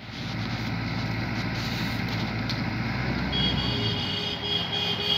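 SANY mini excavator's diesel engine running steadily with a low drone. A high steady tone joins about three seconds in.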